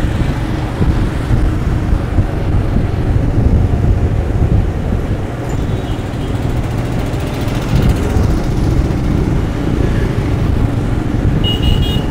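Steady rumble and rush of a motorcycle riding through city traffic, with wind on the microphone and the surrounding vehicles' engines. Near the end there is a brief high-pitched tone.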